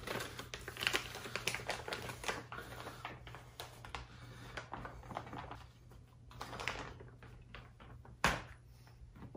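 Crinkling and rustling of a plastic microwave rice pouch (Uncle Ben's Spanish rice) being torn open and shaken out, with rice spilling onto a plate. One sharp knock comes about eight seconds in.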